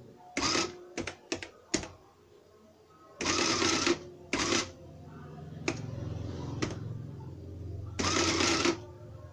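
Canon desktop printing calculator printing lines: its print mechanism runs in about four short bursts, with sharp key clicks between them and a low hum in the second half. The print module had been jammed by dust; after cleaning it now prints.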